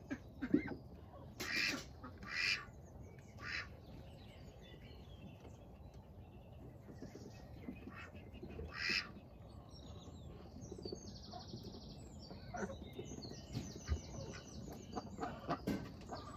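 Ducks quacking: a few loud quacks in the first few seconds and another about nine seconds in, then softer, rapidly pulsed calls.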